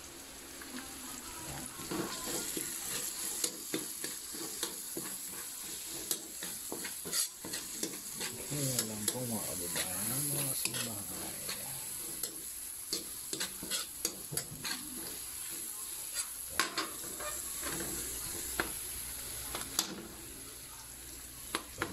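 Chopped garlic and onion sizzling in oil in a metal wok, with a metal spoon repeatedly clicking and scraping against the pan as it stirs.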